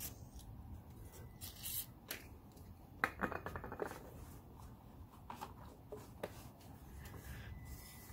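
Short hissing bursts of an aerosol WD-40 spray can, then hands and a cloth rubbing and rattling at plastic electrical connectors, loudest in a quick run of clicks a few seconds in.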